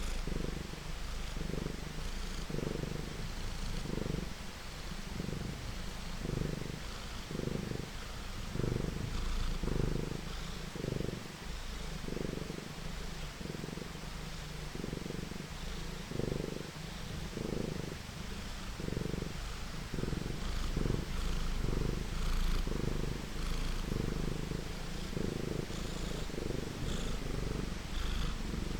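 Domestic cat purring, swelling and fading with each breath about every 0.7 s, over a steady hiss of rain with faint scattered crackles of a fireplace.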